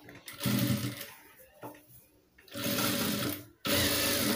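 Jack F4 industrial single-needle lockstitch sewing machine stitching in three short runs: one near the start, then two nearly back to back in the second half. It stops between runs so the fabric can be turned at a corner of the neckline.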